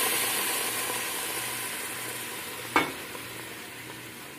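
Browned pork sizzling in a frying pan, the sizzle dying down steadily as sauce is poured back in over the meat. A single sharp knock about two-thirds of the way through.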